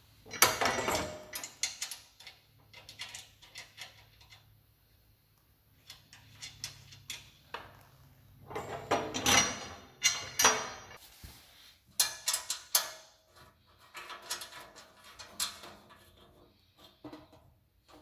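Steel parts of a spreader hopper being handled and bolted together by hand: a bolt pushed through the tubular handle and the sheet-metal hopper wall, giving irregular metallic clunks, scrapes and rattles. They come in several bursts with quiet pauses between, the loudest near the start and again about halfway through.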